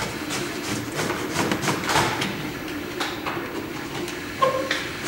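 MakerBot desktop 3D printer running while printing: a steady hum with irregular clicks and ticks, and a brief tone a little over four seconds in.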